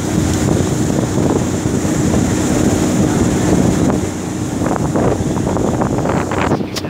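Wind buffeting the microphone on the bow of a moving jet boat, over the steady drone of the boat's engine and the rush of water.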